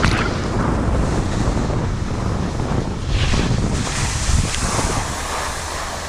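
Wind buffeting an action camera's microphone during a downhill run on snow, a loud low rumble, with the hiss and scrape of sliding on packed snow swelling about three seconds in and again near the end as the rider slows to a stop.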